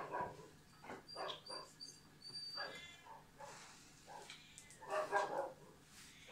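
A dog whining in several short, high-pitched cries, the loudest about five seconds in.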